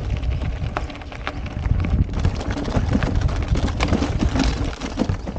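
Wind rumbling on the microphone while riding fast over a rough dirt and gravel trail, with tyre crunch and frequent short clicks and rattles from the bike jolting over the ground.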